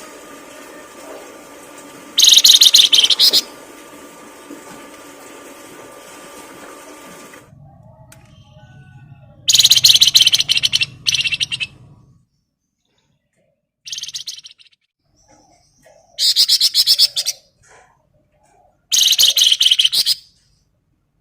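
Songbird song from a masteran training recording: five loud bursts of rapid, buzzy chattering, each lasting one to two seconds, with short pauses between them. A steady background hiss drops away about a third of the way in, and the later bursts come out of near silence.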